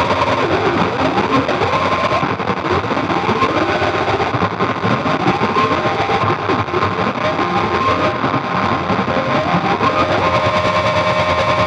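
Experimental noise drone from a Roland V-Synth XT processing sound from an iPad, played on a Haken Continuum Fingerboard that sweeps the filter, resonance and overdrive: a dense distorted wash full of short pitches gliding up and down over a few held tones.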